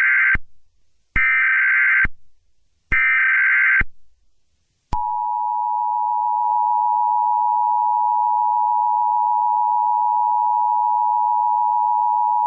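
Emergency Alert System alert tones: three short bursts of digital SAME header data, about a second each, then a steady two-tone attention signal that starts about five seconds in and holds.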